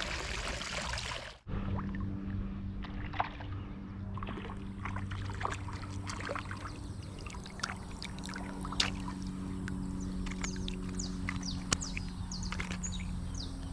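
A hiss of rain and water cuts off about a second and a half in. A boat motor then hums steadily at a constant pitch, with many short bird chirps over it.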